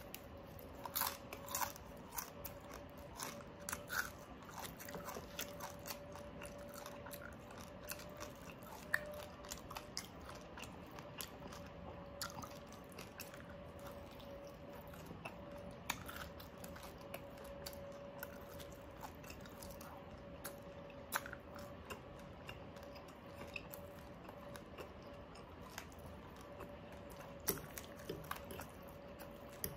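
Close-miked biting and chewing of crispy deep-fried pork knuckle skin (crispy pata): scattered short crunches and wet mouth sounds, thickest in the first few seconds, then quieter chewing. A faint steady hum runs underneath.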